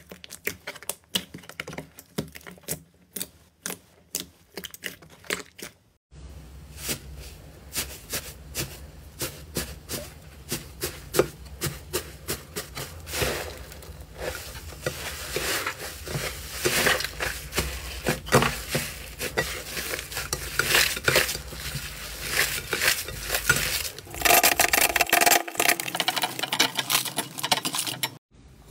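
Thick slime being poked, pressed and squeezed by hand: a run of sticky clicks, squelches and small pops of trapped air. Near the end, slime is stirred with a plastic spatula, louder and denser.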